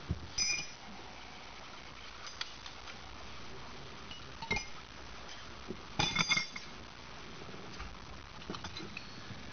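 Metal tools and parts clinking as they are handled and set down: a few separate sharp clinks with a short ring, a clustered rattle of them about six seconds in.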